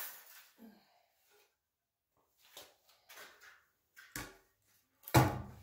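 Handling of a stripped box spring's wire coils and wooden boards: a few faint scrapes and clicks, then two sharp knocks near the end, the second the loudest.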